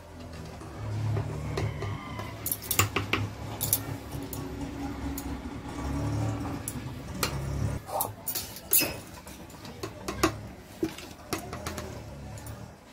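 Metal spoon clinking and tapping against an aluminium pressure cooker while spices are spooned onto raw mutton pieces: irregular sharp clinks scattered through, over a low background rumble.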